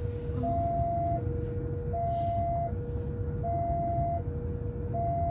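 Railway level-crossing warning alarm sounding its two-tone signal, a higher and a lower note alternating about every three-quarters of a second, warning that a train is approaching. Under it is the low rumble of idling traffic heard from inside a car.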